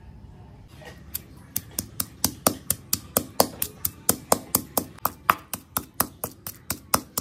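Stone pestle pounding chopped green herb stems in a stone mortar: a steady run of sharp knocks, about four or five a second, starting about a second in and getting louder.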